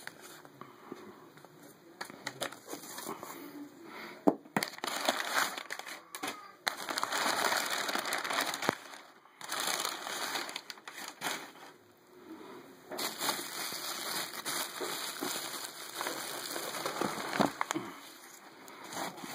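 Packing paper crinkling and rustling in uneven stretches, with scattered clicks and knocks, as a box is unpacked.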